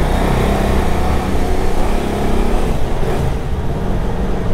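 Motorcycle under way, its engine running steadily beneath a constant rush of wind noise.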